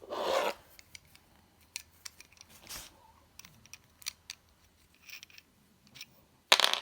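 Small metal clicks and scrapes from handling a bicycle side stand as its end piece is taken off, with a scraping rasp at the start and a louder sharp clatter near the end.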